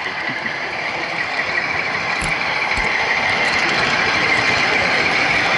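Steady running whir of an H0-scale model train heard from a camera riding on it: the motor and the wheels on the layout's track, with two faint clicks a little past halfway.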